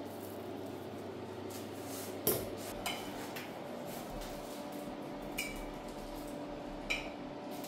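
Dishes being handled: four separate clinks of crockery or glassware being set down, the first the loudest, the later ones with a short ring, over a steady hum.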